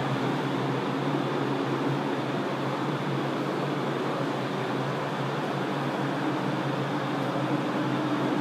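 Paint spray booth's ventilation fans running: a steady rushing of air with a low hum underneath.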